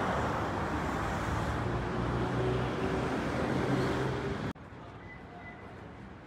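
Street traffic with a car's engine running close by, a steady low hum over road noise. It cuts off suddenly about four and a half seconds in, leaving much quieter street ambience.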